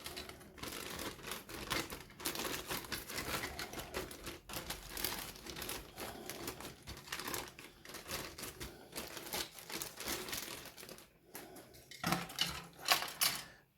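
Plastic parts bag crinkling and rustling as model kit parts are handled. After a short lull the crinkling comes back louder near the end.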